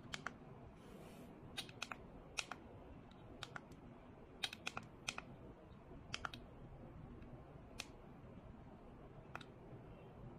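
A dozen or so faint, irregular plastic clicks from the buttons of an LED face mask's handheld remote being pressed to switch the light modes.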